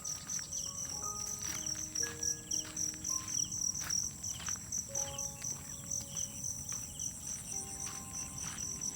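Crickets chirping in a steady, rapid pulse with a high continuous trill behind it. Soft sustained music notes sound faintly underneath.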